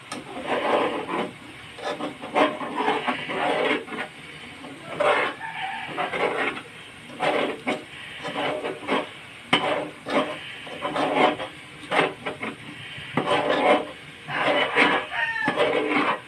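A metal spoon stirring thick chilli garlic sauce and scraping against the sides and bottom of a metal pot, in repeated rasping strokes that come irregularly about once a second.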